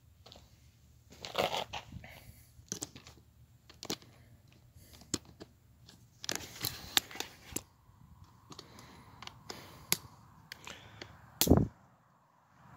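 Phone being handled and repositioned close to its microphone: scattered clicks, scrapes and rustles, with a loud knock near the end.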